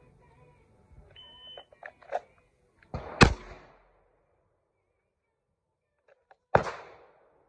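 A shot timer's start beep, one short steady high tone about a second in, followed by a pistol shot about three seconds in and a second shot about six and a half seconds in from a Walther PDP.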